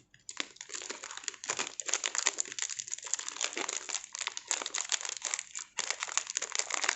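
Clear plastic food packaging crinkling and rustling continuously as it is handled, with irregular sharp crackles.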